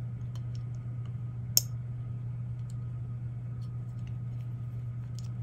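Small clicks and ticks of metal parts being handled as a capstan motor on its mounting plate is fitted into a cassette deck chassis, with one sharper click about one and a half seconds in, over a steady low hum.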